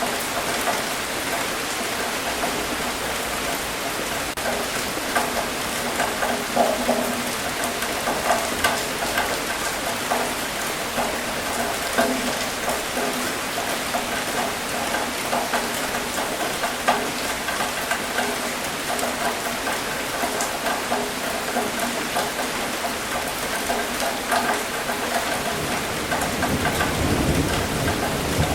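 Steady rain falling, with many separate drops striking close by. A low rumble of thunder builds near the end.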